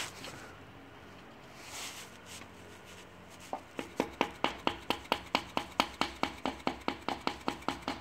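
Orange plastic mallet tapping in a quick, even run of sharp taps, about three to four a second, starting about three and a half seconds in. It is tapping at the rear main seal of a Jeep Cherokee XJ engine to work the seal around the crankshaft.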